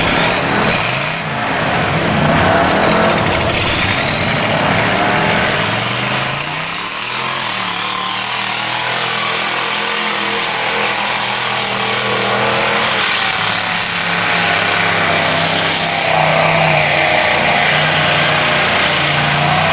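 Lifted mud-bogging truck engine revving hard, its pitch climbing and falling, then rising and holding at high revs through the second half, with mud spraying off the big mud tires as it plows through the pit.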